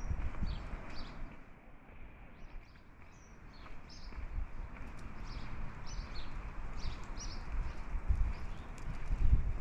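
Small birds chirping, many short high notes scattered throughout. Underneath, wind buffets the microphone as a low rumble that eases for a couple of seconds early on and picks up again near the end.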